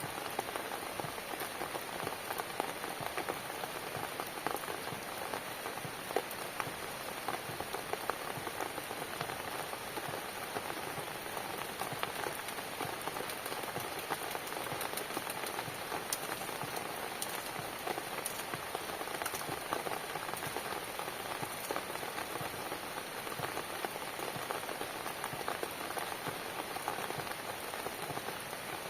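Steady rain falling on a cabin, a dense even hiss with many small drop taps.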